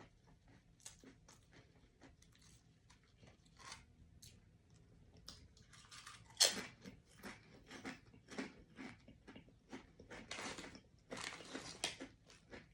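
A person chewing and crunching potato chips, close to the microphone. The crunching is sparse at first and grows busier about halfway through, with one sharp snap just after that.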